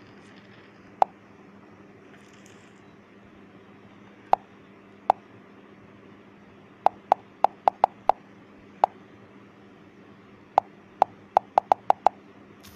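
Taps on an Android smartphone's touchscreen, each a short sharp click: a few single taps, then a quick run of about six, and another fast run of about seven near the end. This is the rapid repeated tapping on "Android version" that opens Android's hidden Lollipop easter egg.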